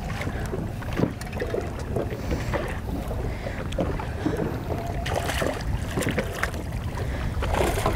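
Wind rumbling on the microphone and small waves lapping against a boat's hull, with a few faint ticks.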